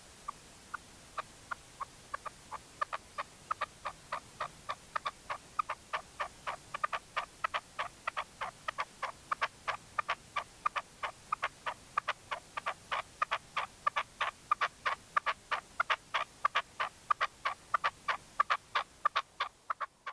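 Caged red-legged partridge decoy male calling: a long run of short, clipped notes that speeds up from about two to about four a second and grows louder. It is the decoy's call to draw wild partridges in.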